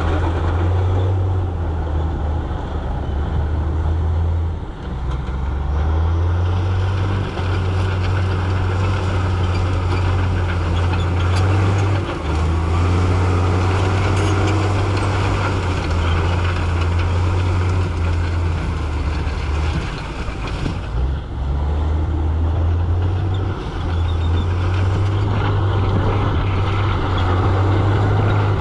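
Heavy earthmoving machinery's diesel engine running hard, a loud, steady low drone that dips briefly every few seconds, with a rough noisy rumble over it.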